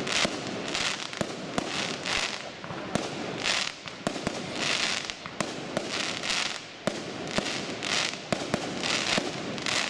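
Festival firecrackers going off: an irregular string of sharp bangs, about one or two a second, between bursts of crackling.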